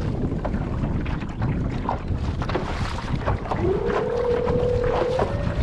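Wind buffeting the microphone and water slapping the kayak's hull. About three and a half seconds in, a whine from the kayak's motor drive starts low and climbs in pitch, levelling off and then stepping higher as it speeds up.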